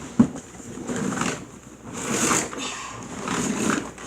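Cardboard box packaging being opened and handled: a sharp tap just after the start, then three rustling, scraping strokes about a second apart.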